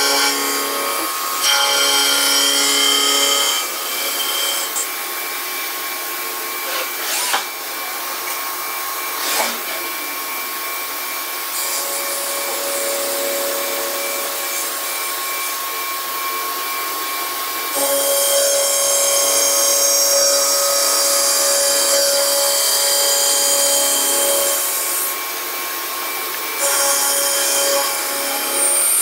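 CNC machining center's spindle driving a milling cutter across the flange face of a pump housing casting: a steady machine whine with the hiss of cutting. The cutting sound swells and eases off a few times as the cut goes on and pauses, with a few sharp clicks in the quieter stretch.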